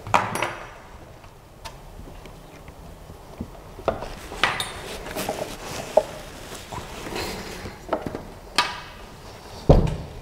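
Metal parts of a Creality CR-6 SE 3D printer handled during assembly: scattered clinks and knocks, with a heavy thud near the end as the gantry frame is set down onto the base.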